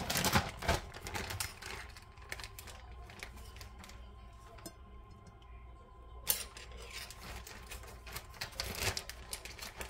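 A serving spoon clicking and scraping against a dish as broccoli salad is scooped out and set on a plate: a run of light clicks, a brief louder clatter about six seconds in, and more clicks near the end.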